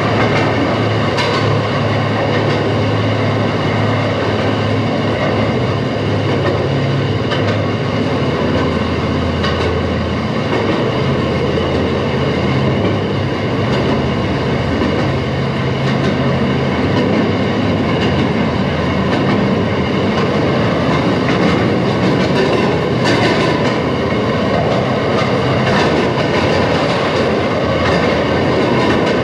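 Railroad motorcar (speeder) running along the track, heard from on board: a steady engine drone under wheel-on-rail noise, with sharp clicks from the steel wheels every few seconds at uneven spacing.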